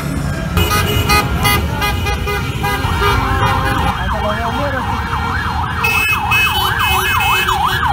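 Car horns honking in short repeated beeps over traffic noise. About three seconds in, an emergency vehicle's siren starts, sweeping quickly up and down two to three times a second.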